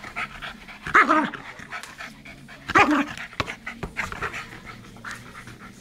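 Small dog panting hard as it plays with a ball, with two louder short vocal sounds from the dog, about a second in and just before three seconds in.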